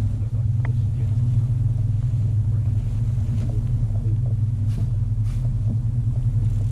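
An engine running steadily with an even, unchanging low hum, plus a few faint clicks.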